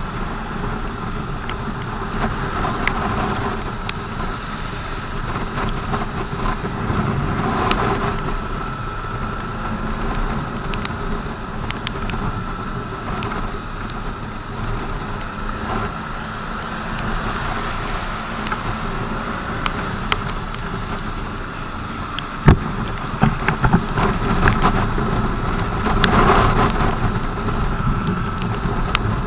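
BMW R 1200 GS motorcycle being ridden: the boxer-twin engine running steadily under constant wind and road noise, with scattered sharp ticks and one louder knock about three quarters of the way through.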